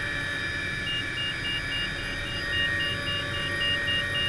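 MD 500 turbine helicopter running on the ground, heard from inside the cockpit: a steady rotor and engine drone with a whine. From about a second in, a cockpit tone beeps about three to four times a second.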